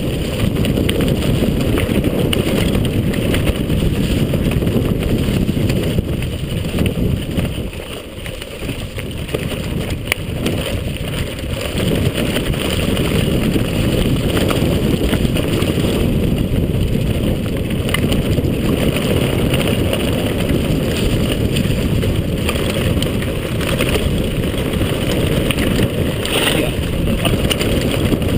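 Wind buffeting a handlebar-mounted camera's microphone as a mountain bike rides fast down a rough dirt trail, with tyre rumble and the odd rattle from the bumpy ground. The noise eases briefly about eight seconds in.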